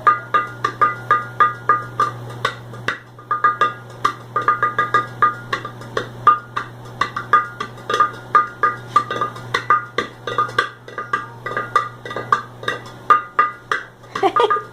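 Improvised batucada rhythm drummed on kitchen objects: quick, sharp strikes, several a second, some with a short ringing tone, over a steady low hum.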